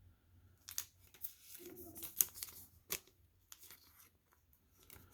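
Trading cards being handled: light rustling and a handful of sharp clicks and snaps, the loudest a little over two seconds in.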